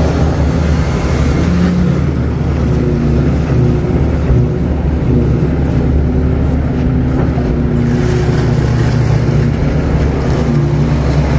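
KATO crawler excavator's diesel engine running steadily, a loud, low, unbroken drone.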